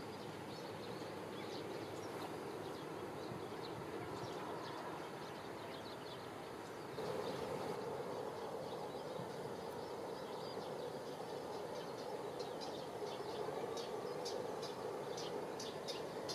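Small birds chirping over a steady outdoor rumble. The rumble gets louder about halfway through, and the chirps come thick and fast near the end.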